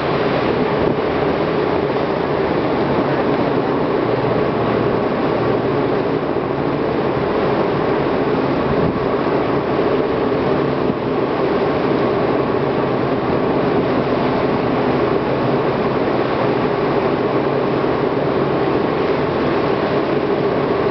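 Tugboat's diesel engines running hard under race power, a constant loud drone heard from the deck.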